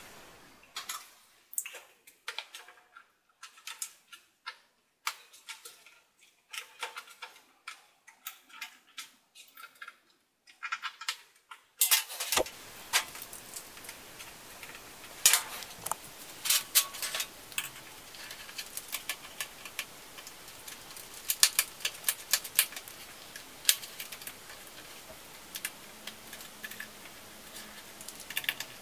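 Irregular clicks and taps of hands and small tools on the plastic case and keyboard of a Lenovo ThinkPad T540p laptop, as the keyboard is pried loose and unscrewed. A faint steady hiss comes in partway through.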